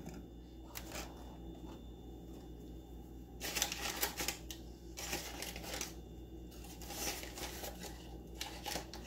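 Faint rustling and light clicking from kitchen items being handled, in several short bouts over a steady low hum.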